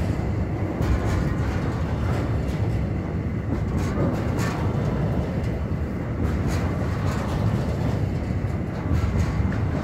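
Double-stack container train's well cars rolling past close by: a steady low rumble of steel wheels on the rails, with a few sharp clicks scattered through it.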